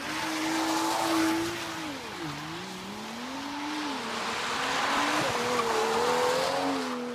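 Car engine revving, its pitch dipping about two seconds in, climbing again and jumping higher a little after five seconds, over a loud hiss of tyres sliding on wet asphalt.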